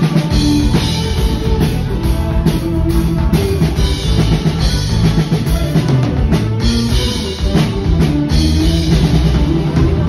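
A live rock band playing: drum kit, electric bass guitar and keyboards, loud and steady.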